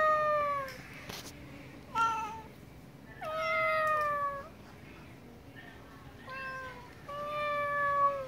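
Domestic cats meowing for food: five meows, long and short, each sliding down in pitch at the end.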